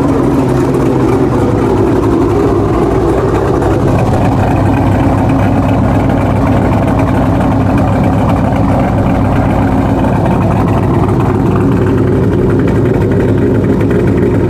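Dodge Durango Hellcat's supercharged V8 running steadily while driving, a constant low engine and road drone that holds the same level throughout.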